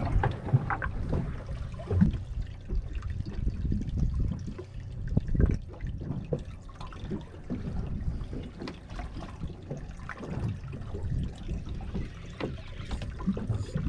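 Water lapping and sloshing irregularly against the hull of a drifting fishing boat, with a low rumble of wind on the microphone.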